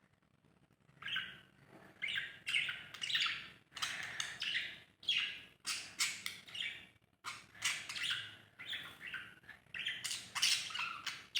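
Pet parrots chirping and squawking in a rapid, unbroken run of short high-pitched calls that starts about a second in.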